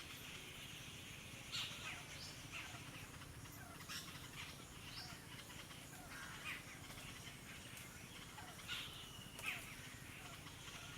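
Birds giving short, sharp calls, scattered irregularly every second or two over a steady low outdoor background hum.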